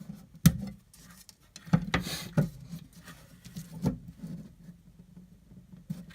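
Sharp knife cutting through duct tape on a hard surface: several sharp taps and clicks, with a brief scratchy slice about two seconds in, over a low steady hum.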